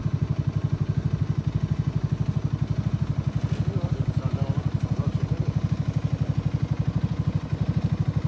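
ATV engine idling steadily, with an even, rapid low thump of about a dozen beats a second.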